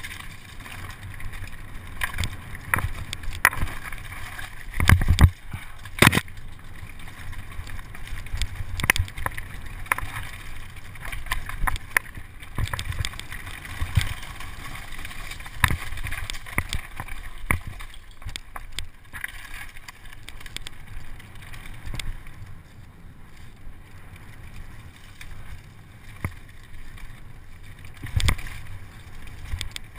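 Electric mountain bike ridden fast down a dirt singletrack: steady rushing wind on the microphone and tyre noise, broken by frequent knocks and rattles of the bike over bumps, the hardest hits about five and six seconds in and again near the end.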